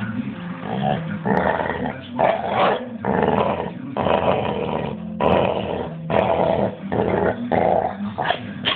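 Pit bull growling continuously as it mouths and chews at a person's forearm and hand in rough play, with several rough noisy bursts of about a second each over the low rumble.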